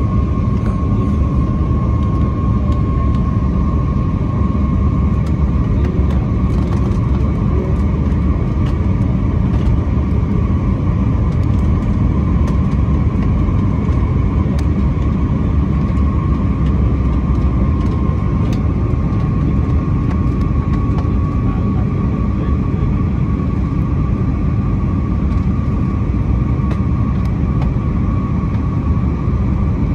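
Jet airliner cabin noise during descent: a steady rumble of engines and airflow heard inside the cabin, with a thin steady whine above it.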